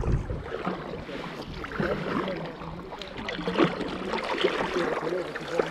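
Double-bladed kayak paddle dipping into the river stroke after stroke, with water splashing and gurgling around the blades. There is a short gust of wind on the microphone at the start.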